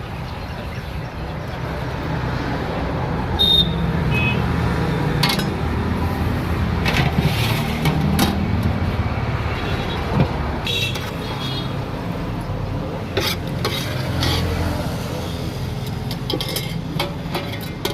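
Busy roadside eatery din: a steady rumble of road traffic with frequent clinks and clatter of dishes and serving utensils.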